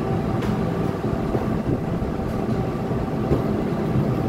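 NJ Transit Bombardier MultiLevel commuter train standing at the platform with its equipment running: a steady low rumble and hum, with a couple of faint clicks.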